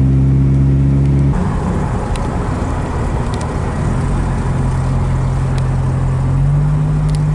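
Vehicle engine and road noise heard from inside the cabin while driving; the sound changes abruptly about a second in and then runs on steadily.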